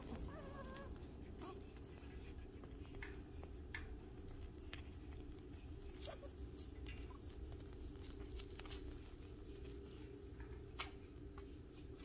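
Six-week-old Shih Tzu puppies playing in a wire pen: scattered light taps, scrabbles and clicks of paws and claws on the pad and pen, with a short wavering puppy whimper in the first second, over a low steady hum.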